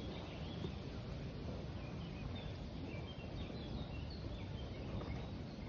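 Steady outdoor background noise with faint, short, high bird chirps in the middle part.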